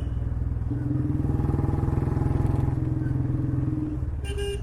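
Royal Enfield Bullet's single-cylinder engine running through an aftermarket C-bend exhaust pipe, which makes it much louder than the stock bend. The engine note rises about a second in and drops back near the end, with a brief high, sharp sound just before the end.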